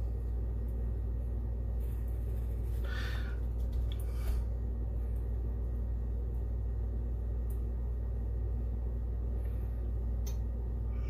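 A steady low hum, with faint popping and a couple of brief hisses from a burrito tortilla being seared under a hot clothes iron pressed down on it.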